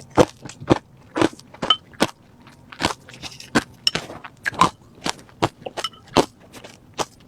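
Refrozen crushed ice crunched between the teeth and chewed, close to the microphone: sharp, irregular crunches about two a second.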